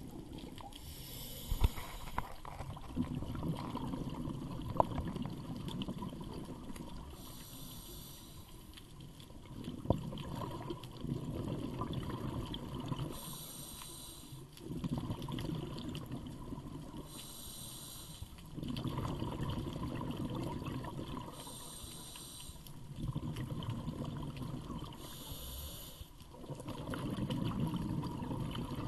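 Scuba diver breathing through a regulator underwater: a short hiss on each inhale, then a longer low bubbling as the exhaled air leaves, repeating about every four seconds. A few sharp knocks come in the first ten seconds.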